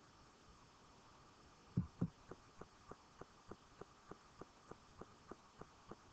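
Faint, evenly spaced ticking, about three ticks a second, starting just before two seconds in with two louder knocks in quick succession.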